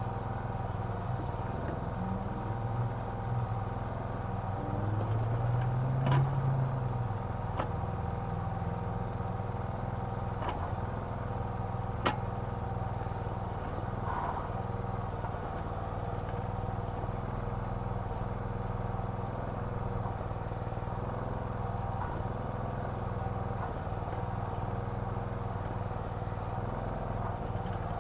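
Small gasoline engine of a towable backhoe running steadily, briefly louder about six seconds in. A few sharp knocks sound over it.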